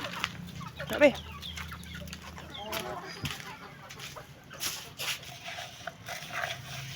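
Chickens clucking while they feed, in short scattered calls.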